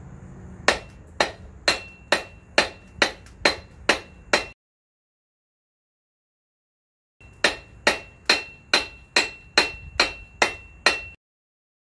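Hammer blows on the steel of a GM 8.25 front differential, about two a second with a high metallic ring, to drive out a shaft that is stuck in the housing. Two runs of about nine blows each, with about three seconds of silence between them.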